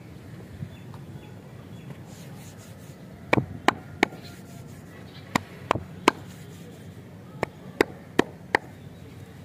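A hand making sharp clicks over wrapped lollipops: three quick ones about three seconds in, three more about two seconds later, and four near the end, over a faint steady low background noise.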